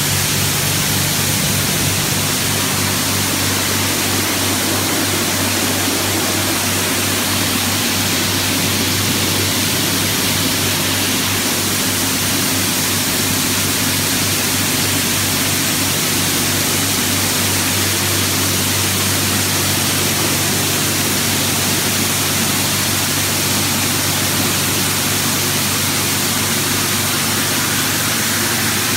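High-pressure water jets from an automatic car wash's spray arch blasting over a car, a loud steady hiss with a steady low hum beneath it.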